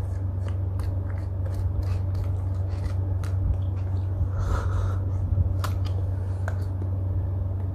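A wooden stick scraping and chipping at hard-frozen yogurt in a small plastic cup, with scattered short clicks and crunches of eating, over a steady low hum.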